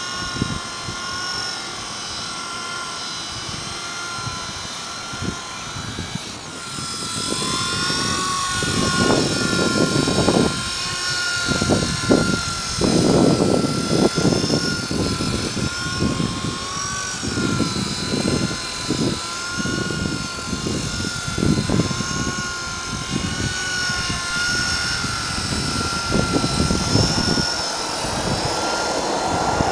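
Small electric GAUI Hurricane 200 RC helicopter flying. Its motor and rotor give a steady high whine that wavers up and down in pitch as the throttle changes, with uneven low rushing noise over it through most of the flight.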